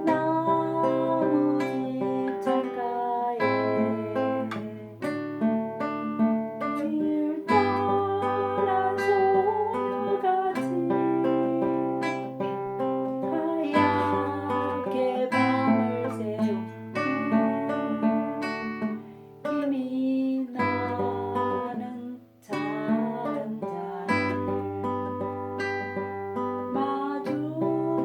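Acoustic guitar playing a slow melody over sustained bass accompaniment, with a short pause about 22 seconds in.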